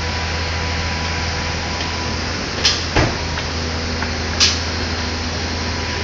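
Construction-site noise: a steady low machinery hum, with three sharp knocks or clanks between about two and a half and four and a half seconds in.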